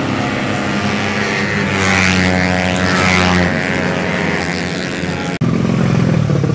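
Racing automatic scooter engines running on the circuit. They grow louder and brighter about two seconds in, then fade. The sound breaks off abruptly a little after five seconds and another engine sound starts at once.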